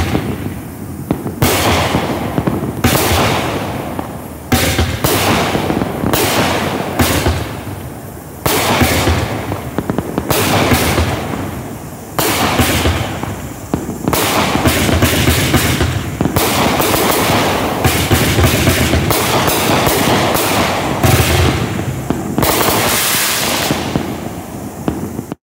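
Black Cat Party Island 20-shot fireworks cake firing: a run of loud shots and aerial bursts, about one a second, with noise between them. It cuts off suddenly just before the end.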